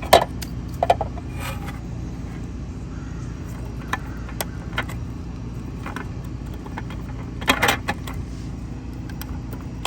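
Scattered plastic clicks and rattles of hands working an outdoor GFCI outlet, plugging a test light in and pressing at it, with a louder cluster of clicks about seven and a half seconds in. A steady low hum runs underneath.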